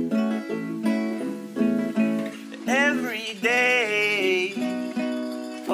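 Banjo and guitar playing a plucked, repeating folk-pop accompaniment, with a gliding, wordless vocal melody coming in about three seconds in.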